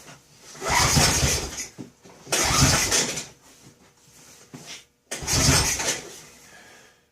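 The ODES 400 ATV's single-cylinder engine, a Honda Rancher clone, being cranked in three short tries of about a second each, with starting fluid in the carburetor after years of sitting.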